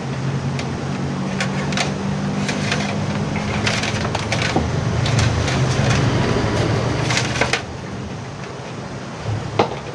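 Plastic clicking and crackling as the LED TV's back cover is lifted off and handled, over a steady low hum. The clicks stop about two-thirds of the way through, and one sharp click follows near the end.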